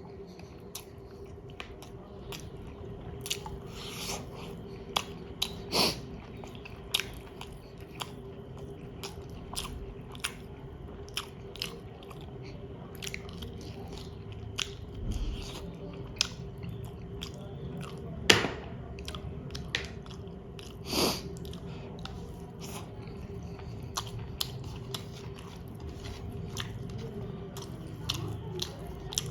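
Close-miked chewing and biting of chicken biryani: a run of wet mouth clicks and smacks, with a few louder bites, over a faint steady hum.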